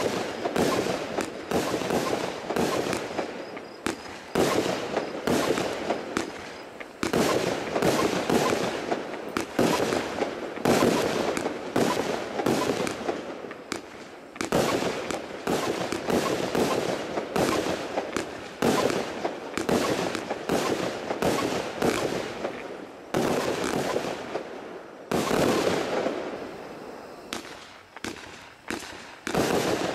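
Kracherblitz fireworks cake firing shot after shot: launch pops and crackling bursts in dense volleys, with brief lulls between them.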